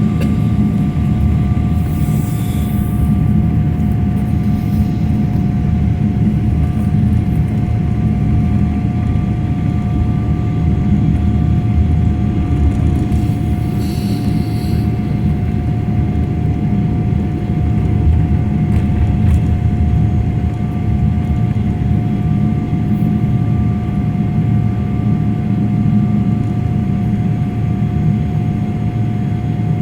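Jet airliner's engines and airflow heard from inside the cabin: a loud, steady low noise with a constant high whine over it, with no clear rise or fall.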